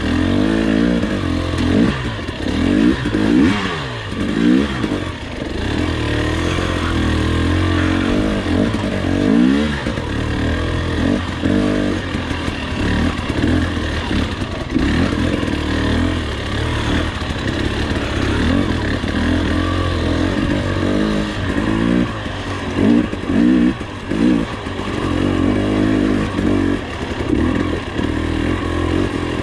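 2021 Husqvarna TE300i single-cylinder two-stroke dirt bike engine revving up and down continuously as the bike is ridden, with intermittent clatter.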